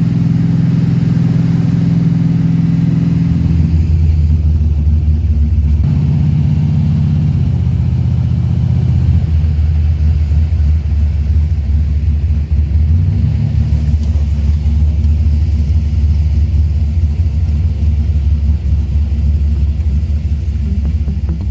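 Big-block V8 engine running, its speed dropping and picking up again a few times in the first nine seconds before it settles into a steady, lower run.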